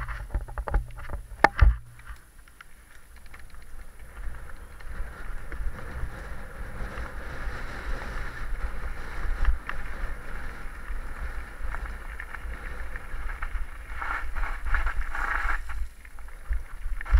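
Mountain bike riding over a rough, stony dirt track: a steady rumble of wind buffeting the action camera's microphone, mixed with the rattle and crunch of tyres and frame on gravel. Sharp knocks about a second and a half in and again near the end.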